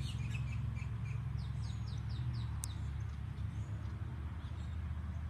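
Songbird chirping outdoors: a quick run of five or six short high notes, each sliding downward, with a few scattered chirps around it. A steady low hum runs underneath, and there is one sharp click about halfway through.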